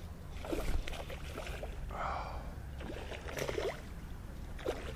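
A hooked fish splashing and thrashing at the water's surface in several short bursts as it is reeled in to the bank.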